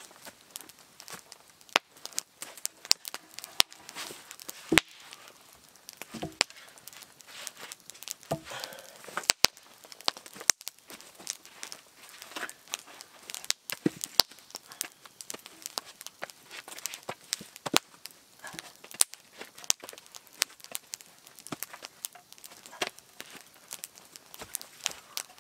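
Logs being shifted and set in place by hand: irregular knocks and thuds of wood on wood, with footsteps and rustling in dry forest-floor litter.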